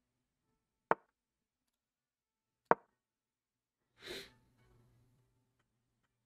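Two sharp clicks about two seconds apart, chess.com's piece-move sounds as moves are played on the online board, then a short sniff through the nose about four seconds in.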